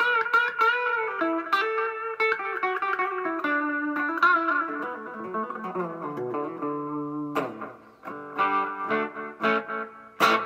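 Gibson Les Paul Studio Plus Top electric guitar played through a small Vox tube amp with a clean tone. A flowing single-note melodic line gives way, about seven seconds in, to strummed ringing chords, with another hard strum near the end.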